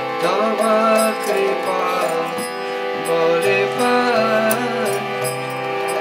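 Devotional bhajan: a man's singing voice over sustained harmonium chords, with small hand cymbals (karatals) clicking in a steady beat about twice a second.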